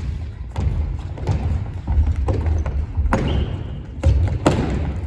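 Futsal ball being dribbled and kicked on a wooden gymnasium floor, with running footsteps: a string of thuds and taps about every half second to a second, echoing in the large hall.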